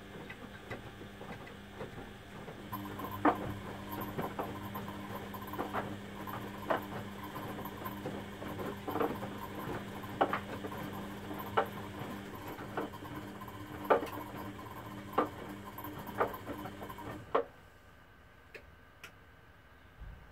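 Front-loading Beko washing machines in the wash, drum tumbling wet laundry: a steady motor hum and water sloshing, with sharp knocks about once a second as the load drops. Near the end the tumbling stops and only a quieter background remains.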